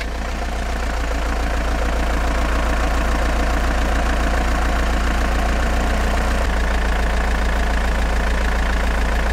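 Car engine idling sound effect: a steady, deep engine hum that swells in over the first second and then holds even.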